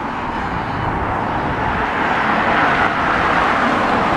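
Road traffic noise: the tyre and engine noise of cars on a residential street, swelling a little past halfway as a car goes by.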